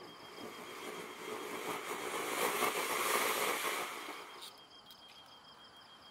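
Ground firework fountain, a 200 g consumer cone, spraying sparks with a hiss and fine crackle that builds to a final surge and then dies away about four and a half seconds in as it burns out.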